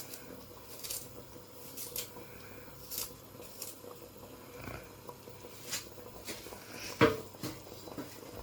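Quiet kitchen handling sounds: faint ticks about once a second, then one sharp clank of cookware about seven seconds in, with a short ring.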